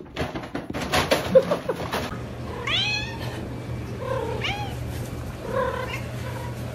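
Knocks and handling noise for about two seconds, then a domestic cat meows three times, about a second and a half apart, each call bending up and down in pitch.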